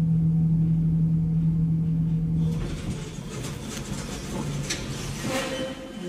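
Elevator car running with a steady low hum that cuts off about two and a half seconds in, followed by a few seconds of rattling and clattering.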